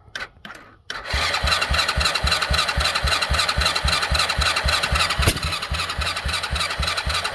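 Coolster 125cc ATV's single-cylinder four-stroke engine being turned over by its electric starter without catching: two short bursts, then steady cranking from about a second in, with about five compression pulses a second. About five seconds in there is one sharp pop, an occasional backfire on a crank-no-start engine.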